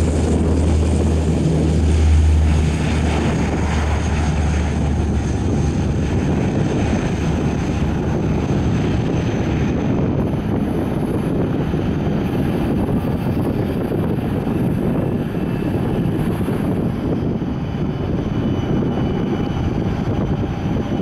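Bombardier CL-415 waterbomber's twin turboprop engines at take-off power as it rolls, lifts off and climbs away. A deep propeller drone, loudest about two seconds in, fades after the first few seconds into a steady rumble.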